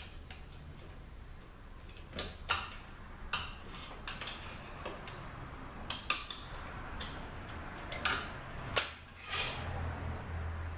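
A tool and a steel snap ring clicking and clinking in a THM-125C transmission case as the ring is worked out of its groove: scattered, irregular sharp metallic clicks, a few of them louder later on.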